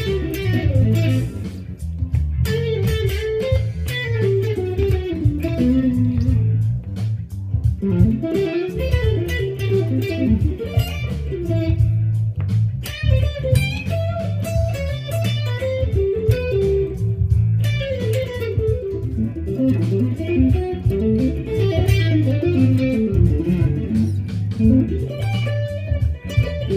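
Jackson Dinky Pro Series DK2 electric guitar played through a Fender Machete amp head and EVH 2x12 cab: fast single-note lead runs and scale shapes. It plays over a backing track with a repeating bass line and drum beat.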